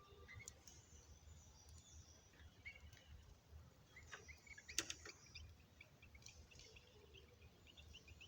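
Small cage birds chirping faintly in short, scattered calls, with one sharp click about five seconds in.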